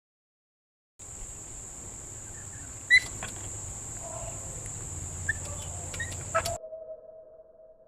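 A few short bird chirps over a steady, high insect drone, with one sharp click about three seconds in. The first second is silent, and near the end the drone stops and a held lower tone takes over and fades.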